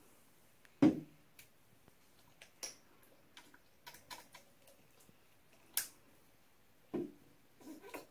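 Scattered light clicks and taps of small plastic paint bottles and caps being handled on a table, with a louder knock about a second in and another near the end.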